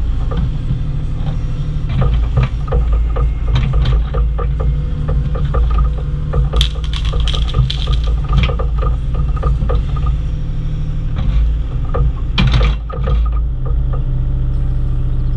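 Bobcat E35i compact excavator's diesel engine running steadily while it digs, with frequent clanks, knocks and scrapes of the bucket and arm working. About thirteen seconds in the knocking stops and only the even engine drone remains.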